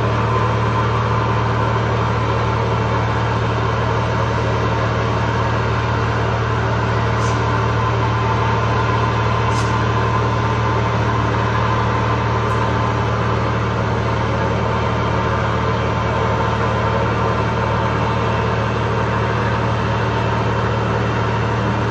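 A large engine running steadily at a constant speed, giving a low, even hum that does not change in pitch or loudness.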